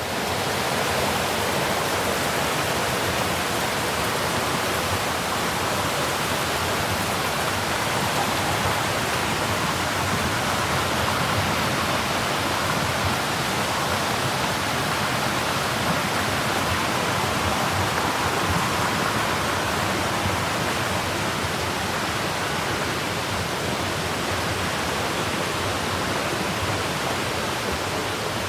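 Mountain stream water flowing and splashing: a steady, even rush of water.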